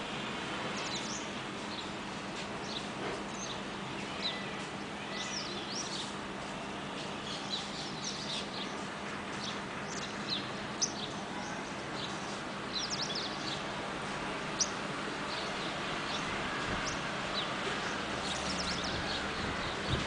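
A flock of baya weavers chirping: many short, high chirps and chattering calls, busier in a few clusters, over steady background noise.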